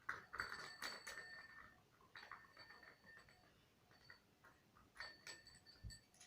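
Faint metallic clicks and knocks of a bicycle bell being taken apart, several of them setting the bell ringing briefly with a thin, high tone.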